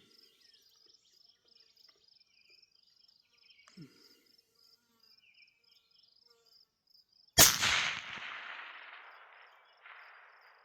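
Insects chirping steadily, then about seven seconds in a single shot from a Barrett MRAD rifle, its report rolling away in a long echo.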